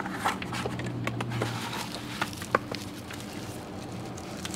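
Handling of protective foam padding and cable ties on a new e-bike frame: scattered small clicks and rustles over a faint, steady low hum.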